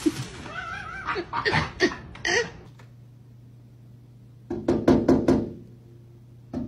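Sandhill crane pecking at a sliding glass door: a quick run of sharp knocks on the glass about four and a half seconds in, and another knock at the end.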